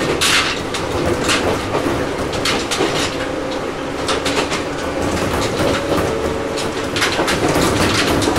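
Ohmi Railway 800 series electric motor car (ex-Seibu 401 series) running between stations, heard from inside the car. A steady rumbling running noise carries a low steady tone, and the wheels clack over rail joints at irregular intervals.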